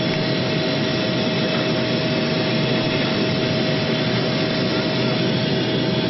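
Airliner's jet engines heard inside the passenger cabin: a steady drone with a constant underlying tone.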